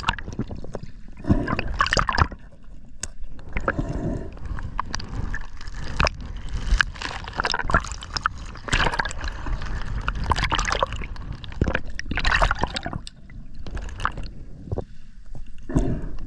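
Water sloshing and gurgling with bubbles, heard on a camera moving through shallow water at and just below the surface. It comes as irregular surges over a steady low rumble.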